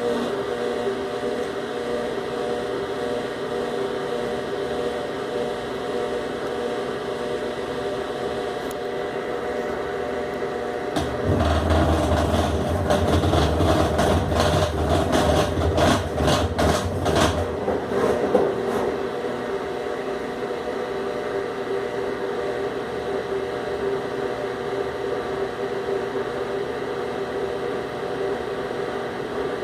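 Consul Maré 7.5 kg washing machine letting out its wash water, with a steady mechanical hum. From about 11 to 18 seconds in it grows louder, with a low drone and rapid clattering: the noise the owner reports whenever the machine drains.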